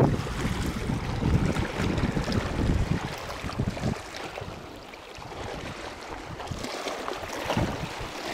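Wind buffeting the microphone over the wash of sea water on shallow rocks, a gusty low rumble that eases a little past halfway through.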